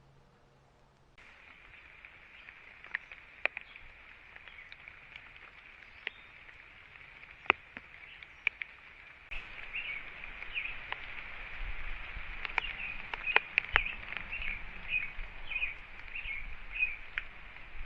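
Outdoor ambience picked up by a trail camera's microphone, with scattered sharp clicks and taps. About halfway in, small birds start chirping in short, quick notes over a low rumble of wind.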